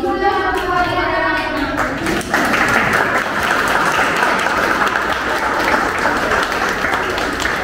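A group of people applauding and clapping in a hall, starting about two seconds in and going on steadily, after a voice at the very start.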